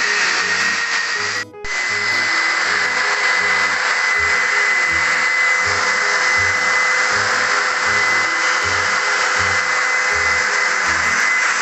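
Long-handled electric plaster sander with dust-bag extraction running with a steady whine while sanding a plastered wall, under background music with a steady beat. The sound breaks off briefly about a second and a half in.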